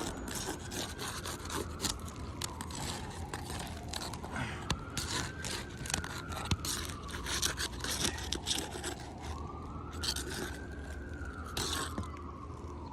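A flat scraper blade scraping and clicking under asphalt shingles, loosening them around a wind-creased shingle. Behind it, a siren wails slowly up and down, rising and falling about every five seconds.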